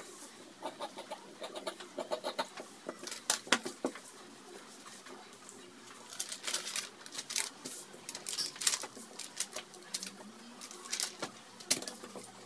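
Dressmaking shears cutting cotton fabric, with fabric and a cardboard pattern being handled and smoothed on a cutting table: irregular snips, rustles and sharp clicks, a few louder strokes scattered through.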